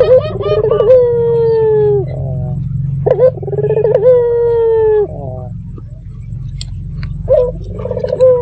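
Puter dove (ringed turtle dove) cooing: three repeated phrases, each a rolling, wavering start running into a long held coo that drops away at its end. A steady low hum lies under the calls.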